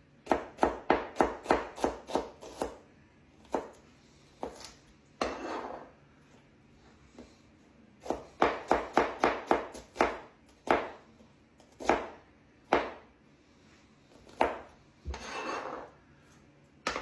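Knife chopping vegetables on a cutting board: quick runs of strokes about four a second, separated by pauses and single chops, with a couple of longer scraping sounds.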